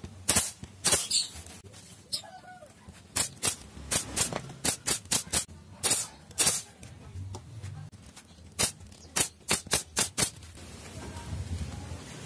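Pneumatic nail gun firing into plywood: about seventeen sharp shots with a burst of air, in quick irregular runs, stopping about ten seconds in.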